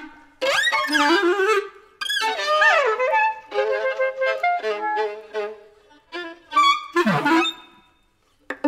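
Clarinet and violin duo playing free, gestural phrases: short outbursts with sliding, bending pitches, broken by brief silent pauses.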